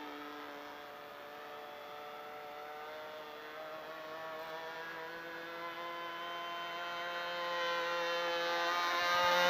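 Two-stroke Super Tigre .51 glow engine with an 11x6 propeller on a radio-controlled L-19 Bird Dog model, running steadily in flight. Its pitch shifts slightly, and it grows louder over the last few seconds as the plane comes nearer.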